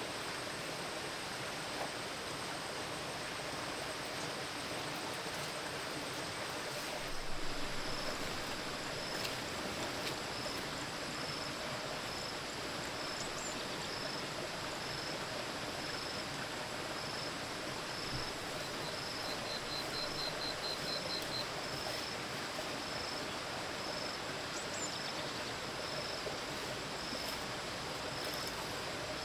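Steady rushing of flowing water, with a faint high chirp repeating a little faster than once a second and a short quick trill of high notes about twenty seconds in. A brief louder rustle comes about seven seconds in.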